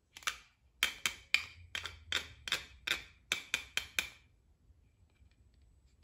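Hard plastic toy kitchen pieces clicking and tapping together as a plastic toy fish, a plastic plate and a plastic utensil are handled. A quick run of sharp clicks goes on for about four seconds, then stops.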